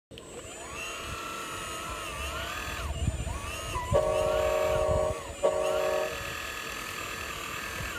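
RC hydraulic excavator's hydraulic pump running with a whine that rises and falls in pitch as the boom and bucket move. About four seconds in it steadies into a louder hum, drops out for a moment, then comes back briefly before settling again.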